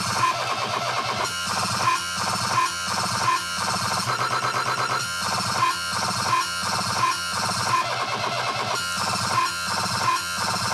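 Dubstep music with a dense electronic sound and a steady beat, accented about every three-quarters of a second.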